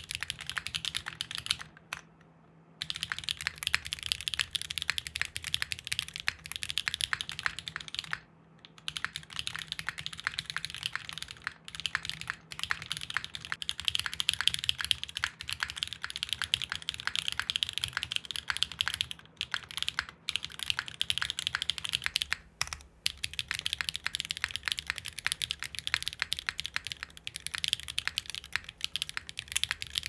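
Continuous fast typing on a TGR Unikorn 2.2 custom mechanical keyboard with lubed Tungsten long-pole linear switches, an O-ring-mounted aluminium plate and GMK keycaps: a dense run of keystroke clacks, with brief pauses about two and eight seconds in.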